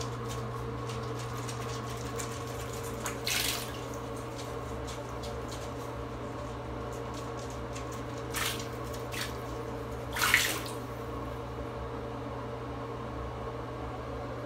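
Shallow bathwater in a bathtub splashing and sloshing as two guinea pigs move about in it, with three louder splashes about three, eight and ten seconds in, over a steady hum.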